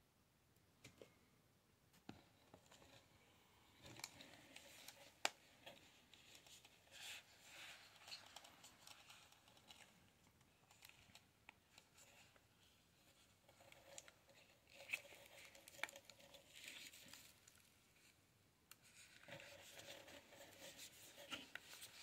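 Faint crinkling, scratching and light clicks of a small boxed tarot deck's packaging being handled and opened by hand, in scattered bursts from a few seconds in.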